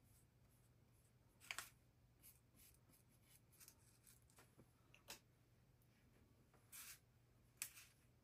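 Faint swishes of a paintbrush laying oil paint on a small panel: a handful of short strokes, the clearest about one and a half, five, and seven seconds in, over a faint low steady hum.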